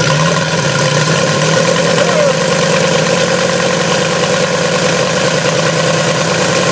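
Evolution 160 model-aircraft radial engine catching after a hand flip of the propeller, then running steadily. Its pitch settles within the first second. The owner calls the run smoother than it has ever been and takes this as a sign that the original ignition module had been faulty and the replacement fixed it.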